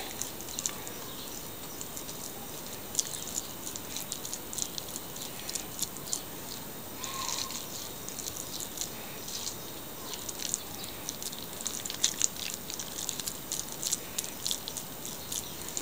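Wet hands rolling raw minced chicken mixture into balls, with soft, irregular squishing and smacking sounds.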